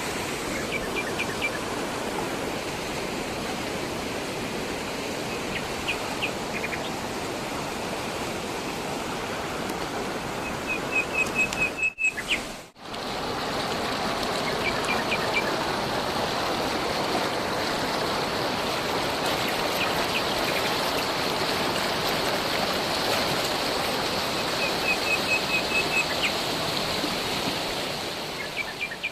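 Steady rushing of flowing water, like a stream, with a songbird giving short runs of quick high chirps every few seconds. The water sound cuts out briefly about twelve seconds in, then resumes.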